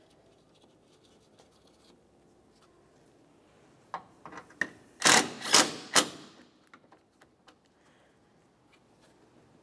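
Cordless power driver running a bolt down on a car's radiator support: a few light clicks as it is set on the bolt, then about a second of the tool running in three quick spurts as the bolt is tightened.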